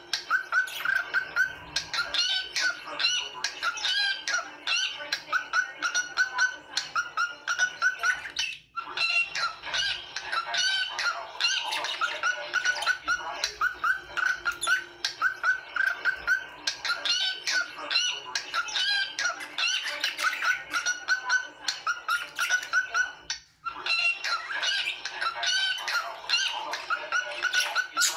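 Small birds chirping and twittering rapidly and without let-up, many short high notes in quick succession, broken twice by a brief gap.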